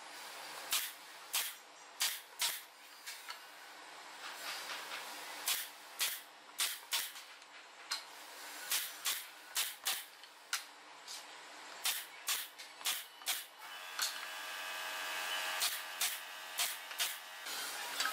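Pneumatic nail gun firing nails into thin wooden roof shingles, an irregular run of sharp shots a second or so apart. A steady hum joins about fourteen seconds in.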